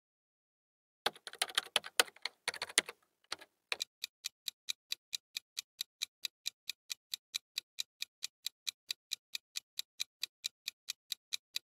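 Clock-ticking sound effect marking a quiz countdown timer: a brief flurry of irregular clicks, then steady sharp ticks at about four a second.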